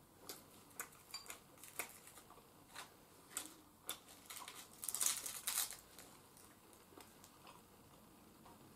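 Eating sounds: chopsticks clicking against a ceramic rice bowl in scattered, irregular clicks, with a louder spell of clicking and scraping about five seconds in.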